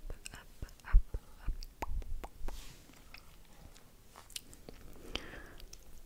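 Close-miked mouth sounds: an irregular string of sharp, wet clicks and smacks from the lips, with a few low thumps, the loudest about a second in.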